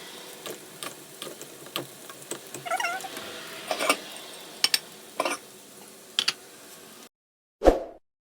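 Scattered light clicks and knocks over a steady background hiss, with a brief wavering high-pitched call about three seconds in. About seven seconds in the background cuts off abruptly, and a single ringing hit follows.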